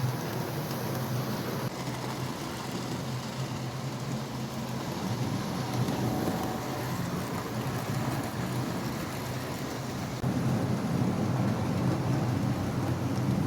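Model trains running on the layout's track, a steady rumble of wheels on rails with a low motor hum. The rumble gets louder about ten seconds in as a train comes closer.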